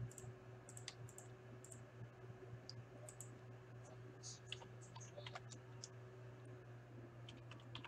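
Faint, scattered clicks of a computer mouse and keyboard over a steady low hum.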